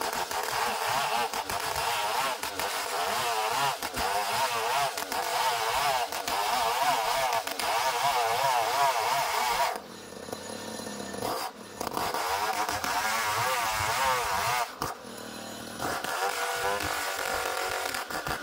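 Homemade engine-driven sawmill running and cutting ulin (Bornean ironwood), its engine note wavering under the load of the cut. The sound eases off briefly about ten seconds in and again around fifteen seconds.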